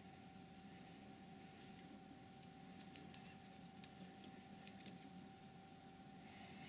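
Near silence: a faint steady hum with scattered light clicks, like small plastic parts being handled.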